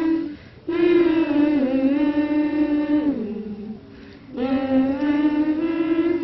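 A single voice singing long, drawn-out notes in two phrases; the first slides down in pitch near its end, and there are short breaks about half a second in and again around four seconds in.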